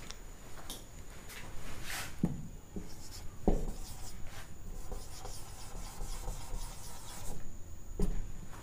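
Marker pen writing on a whiteboard: rubbing, scratchy strokes with a few light knocks as the tip meets the board.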